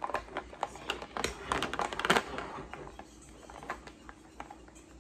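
Felt-tip markers clicking and rattling against a plastic case as they are handled, a quick run of clicks in the first two seconds, then only a few.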